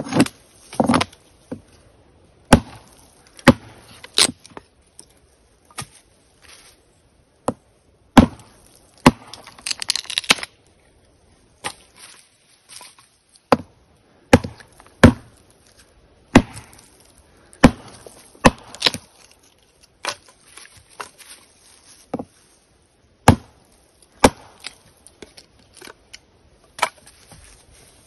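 Wood being chopped: a series of sharp, irregular strikes, often about a second apart, with a busier, scratchier patch about ten seconds in.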